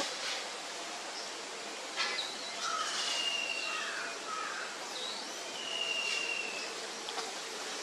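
Outdoor forest ambience with birds calling: several short whistled notes and two longer level whistles, over a steady background hiss. There are a few sharp clicks, one at the start and one about two seconds in.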